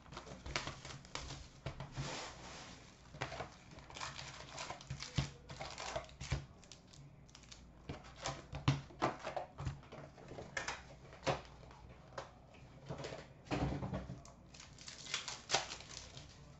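Plastic wrap and foil trading-card packs being handled and torn open: an irregular run of short crinkles, rustles and light taps.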